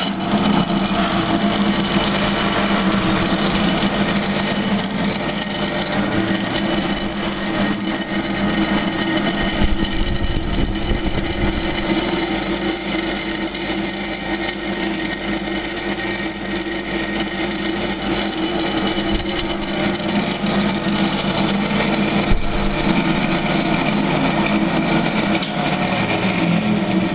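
Silverson EX high shear mixer switched on and running: the electric motor and rotor-stator head start abruptly and run at a steady hum with a high whine. The head is running dry in open air, not in any liquid.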